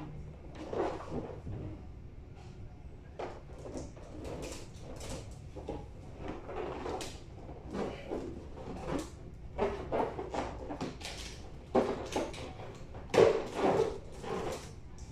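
Balloons being handled and pressed into place against window glass: irregular rubbing and knocking sounds, loudest about twelve and thirteen seconds in.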